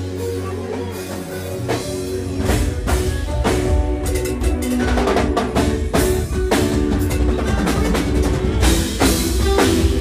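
Live forró band playing: drum kit with regular beats, bass guitar and electric guitar over steady held chords. The drums and bass come in after about two seconds.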